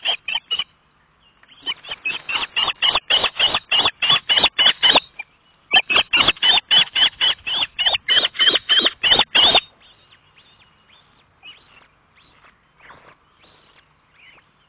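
Osprey calling: rapid series of short, high whistled notes, about five a second, in long bouts that break off briefly and stop about two-thirds of the way through, followed by a few fainter scattered calls.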